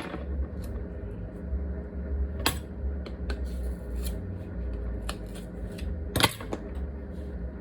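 A container being opened by hand in a kitchen: a few sharp clicks and light clatter, the two loudest about two and a half seconds in and near the end, over a steady low hum.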